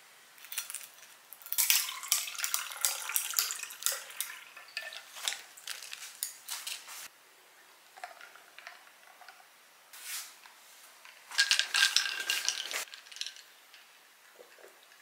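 Ice cubes clinking and rattling against a tall drinking glass as an iced coffee is made. There is a long clatter early on and a shorter, dense burst about eleven seconds in.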